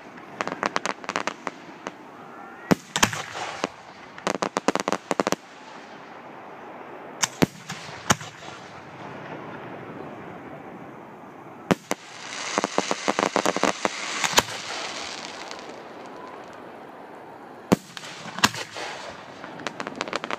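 Aerial firework shells bursting: single sharp bangs a few seconds apart, alternating with clusters of rapid crackling pops. About twelve seconds in comes a longer crackling spell with a fizzing hiss.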